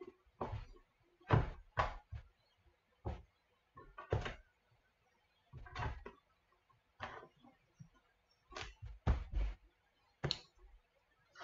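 A string of about eleven irregular knocks and thuds from trading cards and a sealed cardboard card box being handled and set down on a tabletop, three of them close together around nine seconds in.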